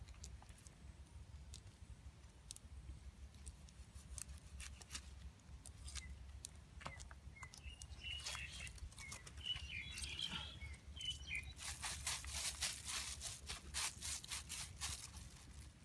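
Thin plastic bag crinkling and crackling as hands squeeze and work it, densest for a few seconds near the end. A few bird chirps come before it, over a low steady rumble.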